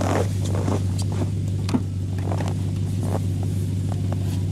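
Pickup truck engine idling with a steady low hum, with scattered knocks and rustles of gear being handled at the back of the truck.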